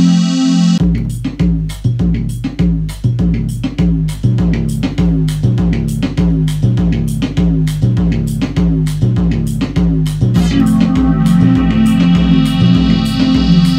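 Live electronic music from synthesizers and a Korg Volca Beats drum machine. About a second in, a steady drum-machine beat starts over a repeating synth bass line, and a held keyboard chord comes in over it near the end.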